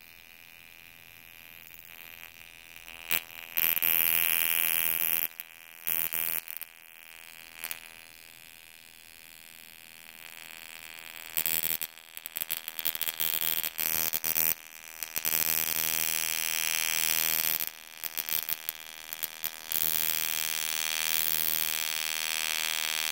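Flyback-transformer high-voltage generator buzzing steadily while an electric arc crackles and hisses between the wire electrodes. The arc comes in bursts: a few short ones early on, then almost continuously through the second half with brief breaks.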